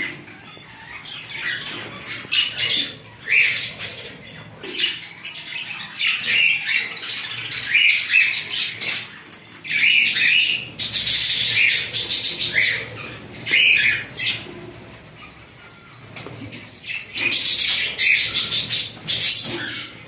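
A flock of budgerigars chattering with many short chirps and squawks. Two louder stretches of harsh screeching come around the middle and near the end.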